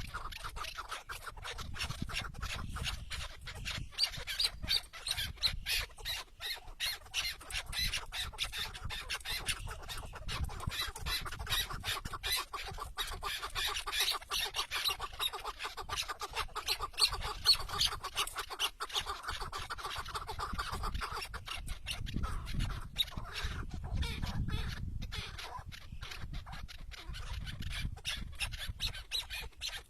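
Chukar partridge calling, a long run of rapid, repeated clucking notes.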